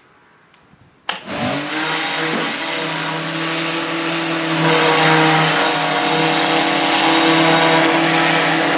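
Electric pressure washer starting up about a second in: its pump motor quickly rises to speed and runs with a steady hum under the loud hiss of the water jet from a rotary turbo nozzle.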